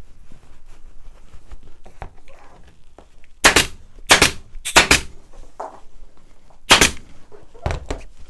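Pneumatic upholstery staple gun firing staples through muslin into a wooden seat frame: sharp single shots, a quick run of four from about three and a half seconds in, another near seven seconds and a quieter pair near the end, with faint fabric rustling between.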